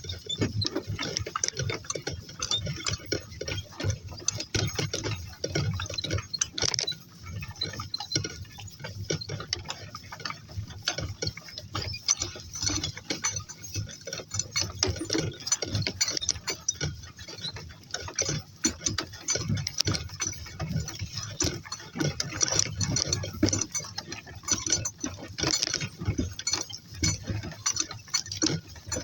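Footsteps and rustling of people and donkeys walking, with many irregular clicks and ticks and no steady rhythm.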